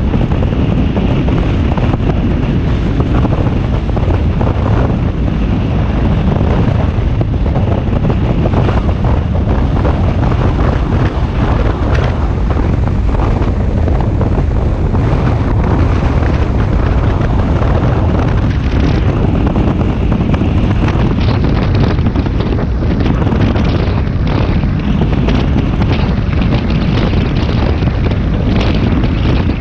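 Heavy wind rushing and buffeting over the microphone of a camera on a motorcycle moving at road speed, with road and engine noise underneath.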